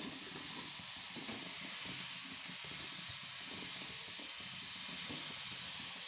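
Grated radish frying in hot oil in a kadhai while being stirred, giving a steady sizzling hiss.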